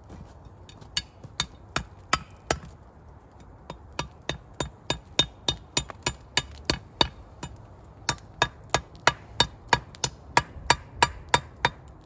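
A hand tool striking wood repeatedly: sharp knocks in three runs at about three a second, the last run the longest and loudest.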